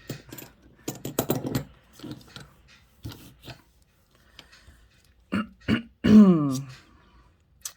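Small sharp clicks of a disc detainer pick and lock being handled and worked, with short wordless vocal sounds: brief ones about a second in, and a loud one falling in pitch, like a burp or groan, about six seconds in.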